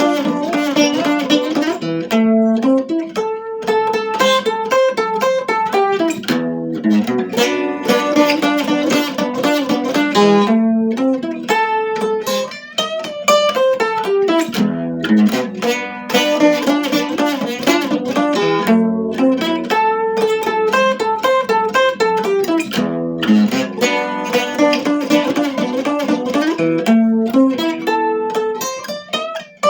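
Instrumental music: a plucked guitar playing a melody of quick picked notes in phrases that repeat about every eight seconds.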